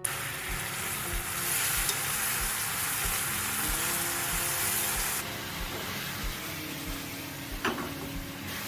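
Food sizzling in a frying pan, a steady hiss that is strongest in the first half and then eases, with a light click of a utensil near the end.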